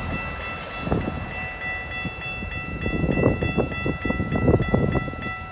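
Railway level-crossing warning bell ringing in a rapid, evenly repeating chime while the gates are down. Under it, the passing GO train makes a low rumble with scattered wheel clicks.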